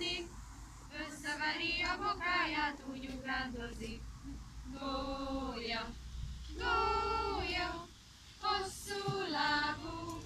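Female voices singing a slow melody without accompaniment, with long held notes.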